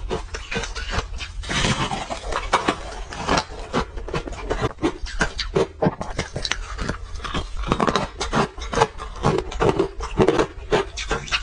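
Close-miked crunching and chewing of frozen orange ice, with dense, irregular crisp crunches several times a second.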